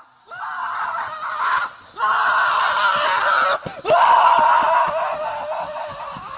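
Three long, high screams in a row, the last one trailing off.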